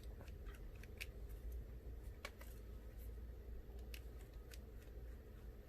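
Faint, scattered small clicks and ticks of a precision screwdriver working small screws out of an iPhone 6s Plus, over a low steady hum.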